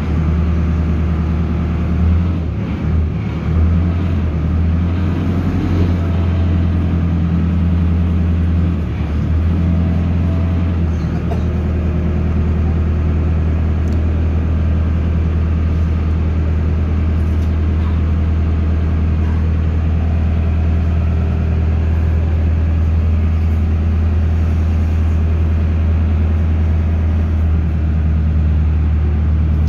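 A houseboat's engine running steadily while the boat is under way: a constant low hum that holds even throughout.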